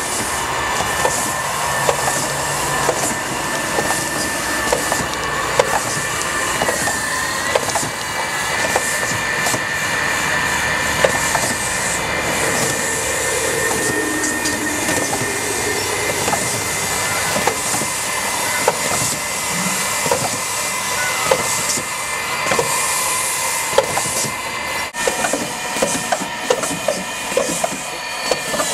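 GEKKO Facade window-cleaning robot at work on a glass facade: its machinery runs with a steady whine and a hiss, scattered with frequent small clicks and knocks.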